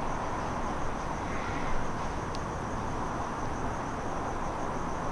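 Crickets chirping in a steady, fast-pulsing trill over a continuous low rushing background. A single sharp click sounds about two and a half seconds in.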